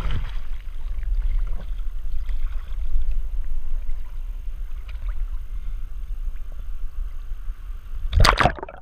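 Muffled low rumble of water and movement picked up by a GoPro in its waterproof housing, with a louder rushing burst near the end.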